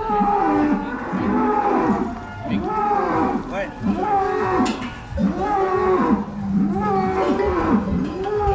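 Several cattle mooing over one another, one call following another with hardly a break.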